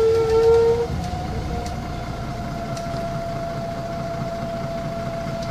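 Neoplan N4016 city bus heard from inside the passenger cabin while driving: a low engine rumble with a drivetrain whine on top. The whine jumps higher about a second in, then slowly sinks in pitch, with a couple of light rattles.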